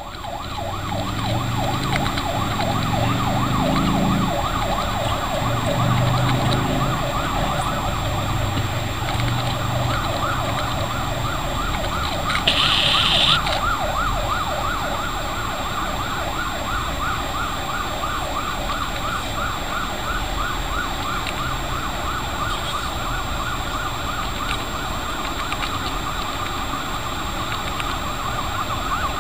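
Police car siren sounding continuously in a rapid rising-and-falling warble over the noise of traffic. A short, louder, higher blare cuts in about halfway through.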